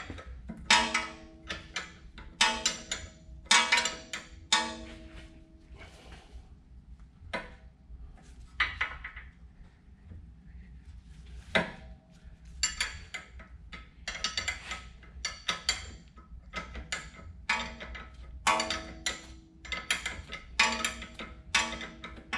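Hand wrench tightening a bolt on a front lower control arm: short bursts of metallic clicks and clinks, each with a brief ring, repeating every second or two as the wrench is worked.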